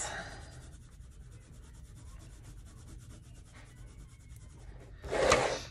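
Colored pencil shading on sketchbook paper: a faint scratchy rubbing of quick back-and-forth strokes. A brief louder rustle comes near the end.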